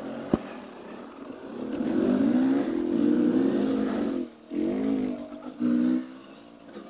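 Dirt bike engine pulling along a trail, its pitch rising and falling with the throttle. The throttle is chopped about four seconds in, followed by two short bursts of throttle. A sharp click comes near the start.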